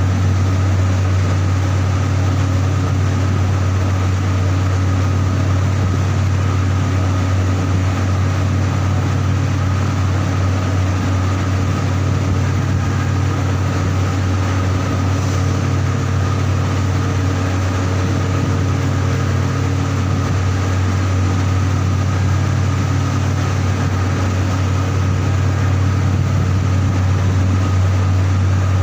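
Heavy industrial machinery running steadily, a constant loud low hum with a steady higher whine and mechanical noise over it.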